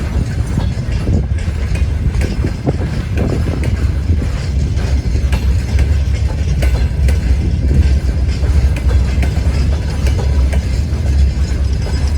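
Freight train rolling past slowly, about 20 km/h: a steady low rumble with scattered clicks and knocks from the wagons' wheels on the rails.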